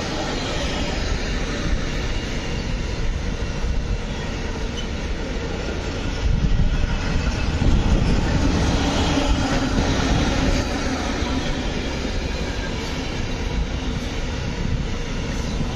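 Container freight train wagons rolling past on the rails: a steady rumble and rattle of wheels and wagons, a little louder for a couple of seconds around the middle.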